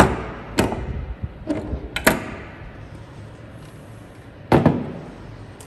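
Metal motorcycle parts and tools knocked and set down during assembly: about six sharp clanks and knocks, the loudest at the start and a close pair near the end, each trailing off in room echo.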